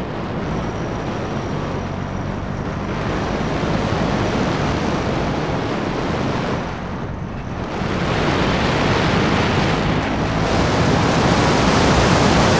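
Wind rushing over the microphone on a moving KTM 200 Duke motorcycle, with its single-cylinder engine running steadily underneath. The wind eases briefly about seven seconds in, then rises again.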